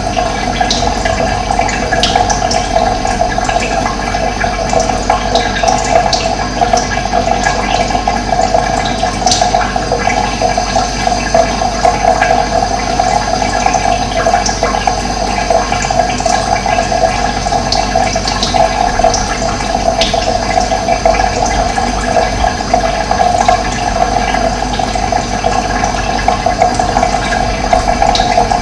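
Running water flowing steadily, with short bird chirps scattered through it.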